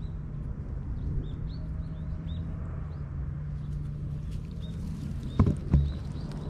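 Small birds chirping, short repeated chirps over a steady low hum and rumble. Two sharp thumps close together near the end.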